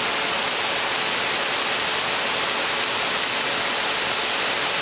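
Steady rushing cockpit noise of an Embraer Legacy 600 business jet in flight, an even hiss with a faint steady hum under it.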